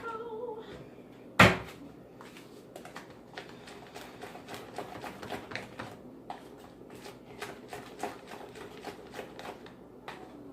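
Kitchen utensils at work: one loud knock about a second and a half in, then a run of light, irregular clicks and taps, several a second.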